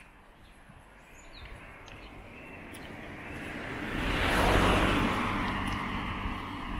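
A small car overtaking from behind and driving away on a paved road. The tyre and engine noise swells for a few seconds, is loudest about four and a half seconds in, then fades as the car pulls away.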